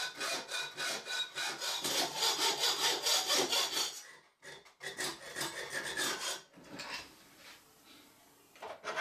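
Hacksaw cutting 1/8-inch brass plate clamped in a vise, in quick back-and-forth strokes. The sawing breaks off briefly about four seconds in, resumes, and stops about six and a half seconds in, leaving only faint handling sounds.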